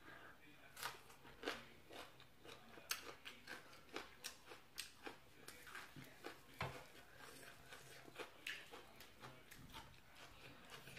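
A person chewing crunchy fresh vegetables and spicy long-bean salad, heard as a string of quiet, irregular crunches and mouth clicks.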